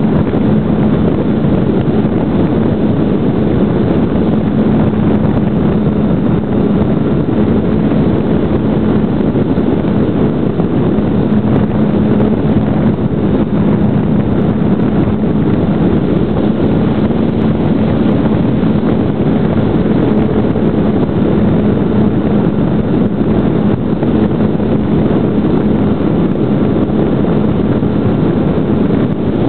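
Brushless electric motor and propeller of a GWS Slow Stick RC plane running steadily, a constant low hum under a loud rush of wind over the onboard microphone.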